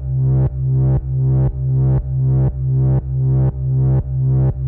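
Moog Subsequent 37 analog synthesizer repeating one low note about twice a second, with its filter resonance turned off. Each note starts dull and brightens as it goes.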